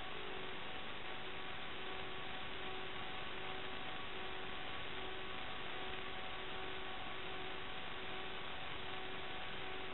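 Steady hiss of static from the audio channel of an FPV quadcopter's analog video-link recording, with a faint hum of a few steady tones that fade in and out. The tones do not change pitch as the quad dives and rolls, so this is link noise rather than the motors.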